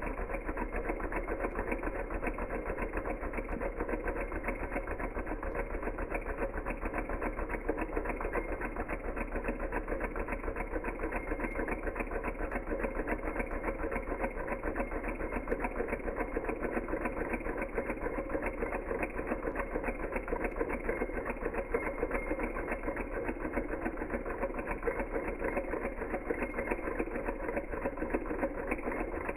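Small Hog Motor Stirling engine running steadily: a fast, even mechanical clatter that keeps up without change.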